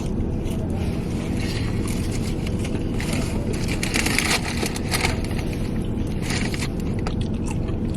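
Steady low rumble inside a truck cab, with scattered crunching and crackling from eating fried chicken close to the microphone, most of it in the middle of the stretch.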